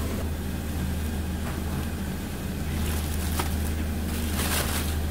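Steady low hum of motor-driven machinery in a rice cake mill. A few brief rustles of plastic wrap come near the end as rice cake sticks are handled on it.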